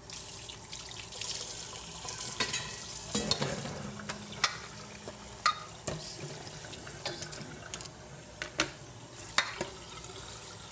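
Tap water running while chopped leafy greens are washed in a bowl at the sink, with a dozen or so sharp knocks of the bowl and dishes. The water comes on suddenly at the start.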